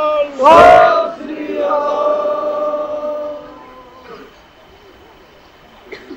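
Voices chanting in long held notes, with a louder, harsh note about half a second in; the chanting stops after about three and a half seconds, leaving only faint sounds.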